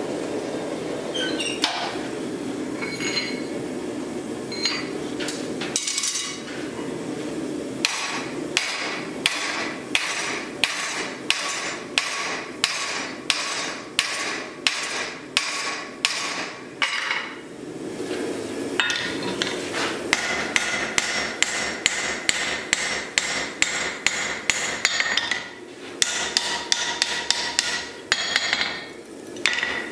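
Hand hammer blows on a hot axe head with a steel drift driven through its eye, struck in steady runs of two to three blows a second with short pauses between, some blows ringing. A steady rushing noise sits underneath.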